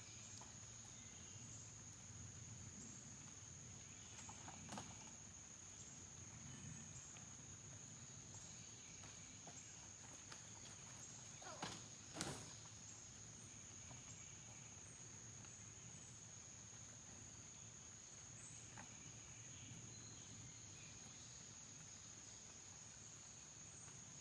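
Faint, steady high-pitched drone of insects, with a couple of soft knocks about twelve seconds in.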